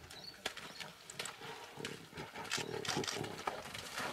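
A lion making a run of short, low growls about two to three and a half seconds in, while holding a wildebeest it has caught in a mud pit. Faint clicks are scattered through.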